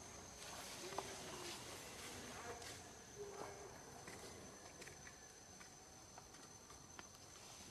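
Faint outdoor ambience with a steady high-pitched insect drone and a few scattered faint clicks.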